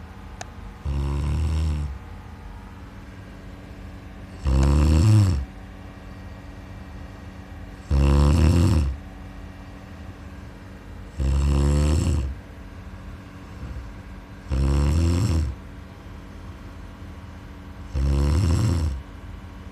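A sleeping person snoring: six loud, low snores at an even pace, one about every three and a half seconds, each lasting about a second.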